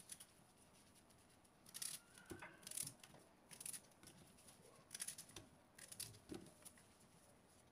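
A knife slicing through a raw red onion held in the hand, coarse chunks cut straight into the pot: a handful of short, crisp cuts spaced about a second apart.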